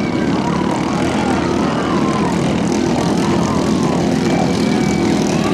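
Racing boats' underbone motorcycle engines running hard at speed: a loud, steady engine drone from more than one boat, with short rises and falls in pitch layered over it.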